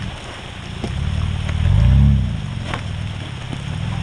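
Mitsubishi Pajero Sport's engine pulling at low speed as the SUV crawls over wet rocks, swelling in a brief rev about two seconds in and then settling back, with a few light knocks.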